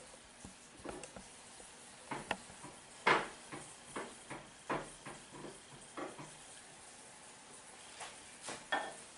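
A hand utensil stirring and mixing custard in a bowl: irregular clinks and scrapes against the bowl, a few each second, with a short lull about two-thirds of the way through.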